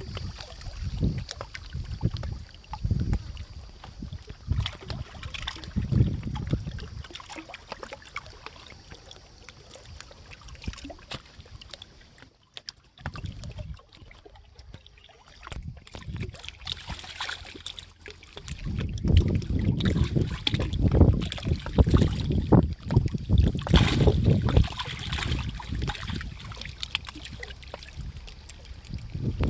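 Wind buffeting the microphone in irregular low gusts, dying down for a stretch and then strongest in the last third, over faint scattered clicks.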